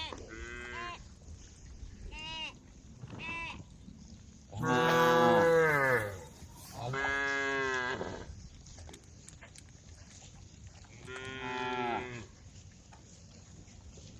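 Cattle mooing in turn: a few short moos in the first seconds, then two long moos about five and seven seconds in, the first the loudest, and another about eleven seconds in.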